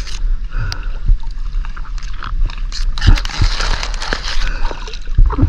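Water sloshing and splashing, with scattered sharp knocks and a steady low rumble; the splashing grows louder about three seconds in.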